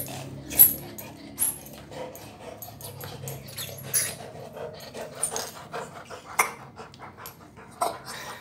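A dog's claws clicking on a tile floor and its teeth gnawing a rubber ball toy: a string of sharp, irregular clicks and knocks, the loudest about half a second in.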